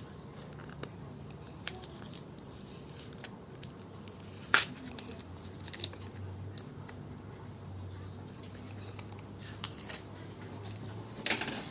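Scattered small clicks and snaps from hands working on an opened laptop, with a sharp click about four and a half seconds in and another near the end.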